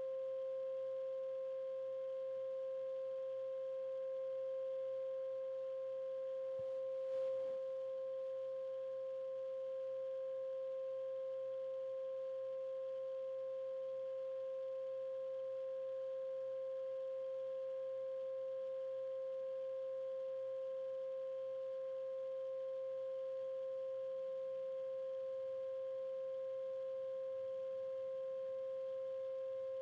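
Steady 528 Hz sine-like tone, the 'healing frequency' played for energy work, holding one unchanging pitch with a faint overtone an octave above. There is a brief soft bump about seven seconds in.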